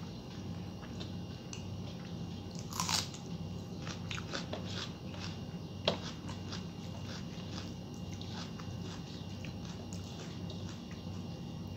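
Close-up chewing and biting sounds of someone eating rice and fried vegetables by hand, with soft clicks of fingers against a steel plate. There is a louder crunchy burst about three seconds in and a sharp click near six seconds, over a steady low hum.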